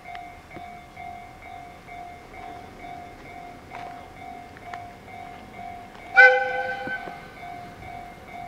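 An electric locomotive, the Chichibu Railway's Deki 507, gives one short horn blast about six seconds in, the loudest sound here. Under it a warning bell dings steadily about two and a half times a second, like a level-crossing bell.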